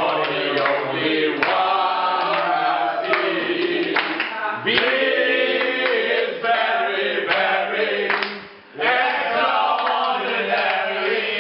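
A group of men singing and chanting together, several voices at once, with a short break about eight and a half seconds in.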